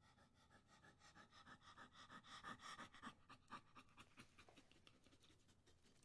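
A dog panting quickly, about five or six breaths a second, faint and loudest around the middle.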